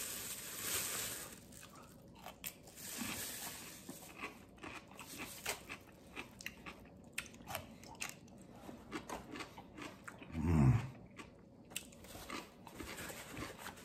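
A plastic bag crinkles briefly as a pickle is unwrapped, then comes the crisp crunch of biting and chewing a pickle, in many short crunches. About ten seconds in there is a short, low hum of the voice.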